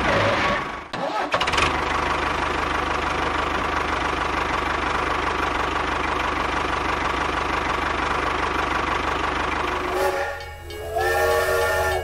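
Tractor engine running steadily, with a brief break about a second in. Near the end the engine sound stops and a train horn begins, a chord of several held tones.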